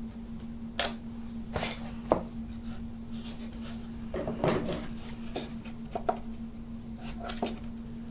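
Scattered light scrapes and taps of a hobby knife and hands working the covering fabric along a balsa frame's edge, with a steady low hum underneath.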